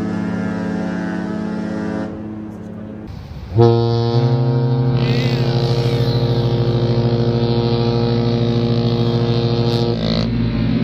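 Ship's horns. One deep blast ends about two seconds in, and after a short pause a second, slightly higher horn starts abruptly and holds a long steady blast until near the end.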